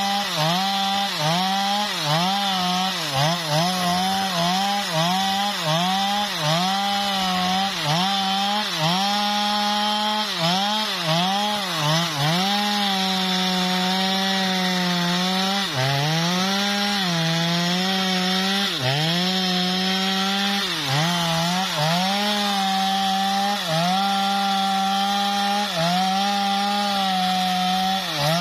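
STIHL MS 250 two-stroke chainsaw at full throttle, cutting through a teak log. Its engine note dips under load and recovers about once a second at first, then holds steady for several seconds at a time with occasional dips.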